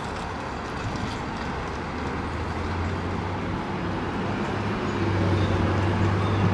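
Steady rumble of highway traffic, with a low engine hum that swells toward the end.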